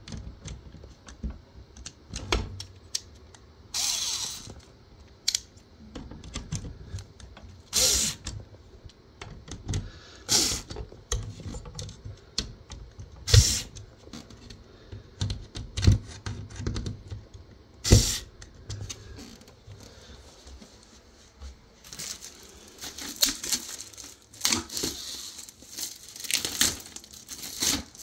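Irregular clicks, taps and knocks from handling a white wire ironing-board hanger and its mounting hardware during fitting, with a few short louder noises among them. Near the end, steady rustling and crinkling takes over.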